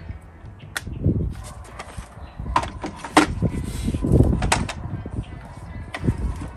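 Hard plastic clicking and knocking as a car's active grille shutter assembly is handled and fitted into the front bumper opening, with a few sharp clicks and a couple of dull low thuds.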